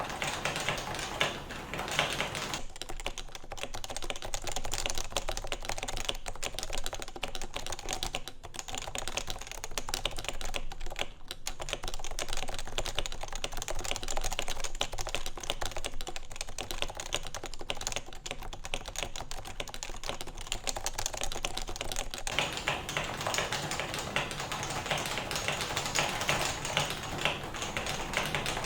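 Continuous fast typing on a Topre keyboard (Realforce RF 88UK internals with Topre electro-capacitive switches lubed with 205g0, in a steel-plated custom case), a dense run of soft, muted key strokes. The strokes sound less deep from a few seconds in until about two-thirds of the way through.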